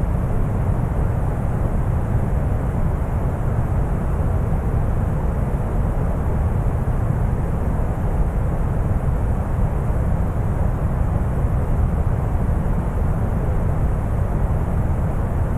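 Deep brown noise: a steady, even hiss with most of its energy low in the bass, unchanging throughout.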